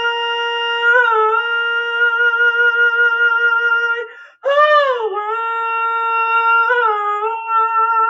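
A man humming a wordless melody in long held notes. The notes bend briefly about a second in and again near the end. A short break just past halfway is followed by a note that swoops up and back down, and the last held note wavers.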